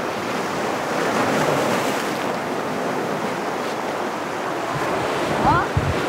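Sea surf breaking and washing over a rocky shore: a steady rush of waves, with wind buffeting the microphone in a few low thumps near the end.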